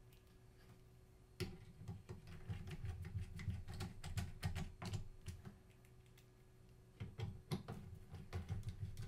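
Rapid clicking and tapping of small tools and parts being handled during a camera teardown, in two bursts of a few seconds each: one starting about a second and a half in, the other near the end.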